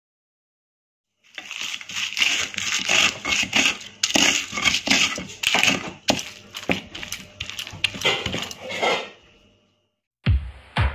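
A bare hand mashes and kneads a fish bhorta mixture of flaked tilapia, coriander and chillies on a plate, making a run of quick, irregular crunchy, squishy strokes. It stops about nine and a half seconds in, and music with a steady beat starts near the end.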